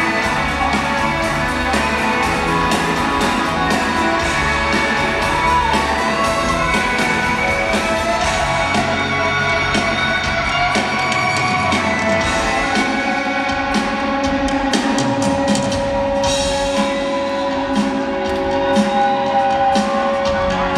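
Rock band playing live in a large hall: amplified electric guitars, bass guitar and drum kit, with a long held note through the last third.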